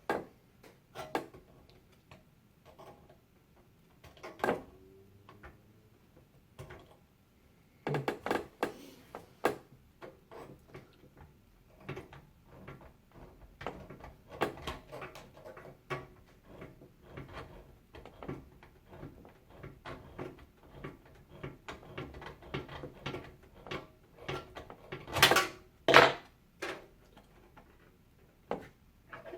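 Scattered clicks, taps and knocks of hands working on PC water-cooling hardware, unscrewing a tight fitting and handling parts in the case, with louder knocks about eight seconds in and again near the end.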